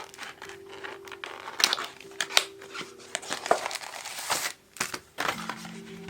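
Packaging being handled during an unboxing: crinkling and rustling, with scattered sharp clicks and taps as items are moved. Faint background music sits beneath.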